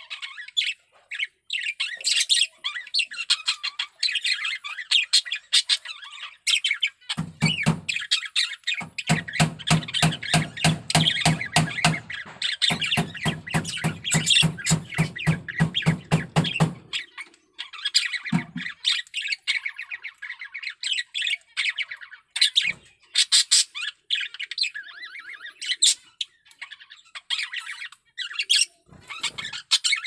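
Male budgerigar's continuous chattering warble with squawks and chirps. A stretch of rapid clicking runs through the middle. It is the song of a male in strong breeding condition.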